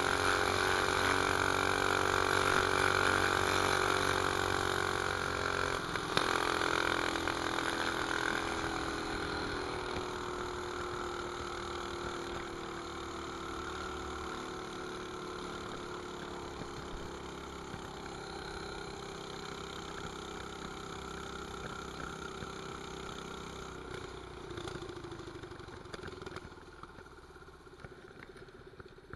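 Mini bike's 212 cc single-cylinder engine with an aftermarket pipe running while being ridden. The engine note eases down in pitch over the first several seconds, then holds, and grows steadily quieter toward the end as the bike slows. There is one sharp knock about six seconds in.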